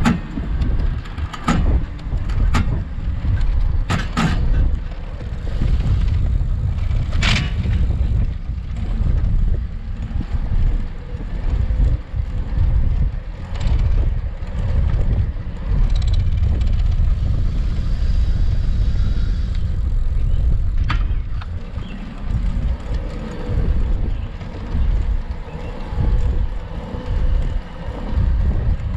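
Electric city bike ridden on pavement under power, with a heavy low rumble of wind on the microphone and rattles from the bike. Several sharp clicks come in the first eight seconds.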